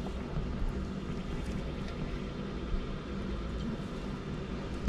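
Steady low background hum and rumble, with one brief knock about halfway through.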